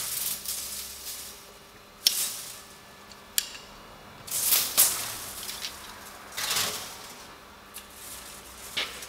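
Long stringy metal swarf, a 'bird's nest' instead of broken chips, being pulled and scraped off a lathe workpiece and tool post: repeated brief metallic rustling and rattling, with a sharp click a few seconds in. The stringy swarf shows the cutter is not breaking the chip.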